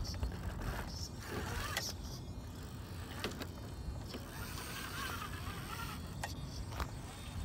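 Gmade Komodo RC rock crawler's small electric motor and gearbox whining as it crawls over rock, the pitch rising and falling with the throttle, with a few sharp clicks and a low rumble underneath.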